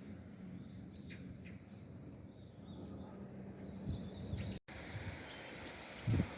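Outdoor ambience: a few faint bird chirps over a low steady hum. The audio drops out for an instant about two-thirds of the way through, and low rumbling thumps begin just before the end.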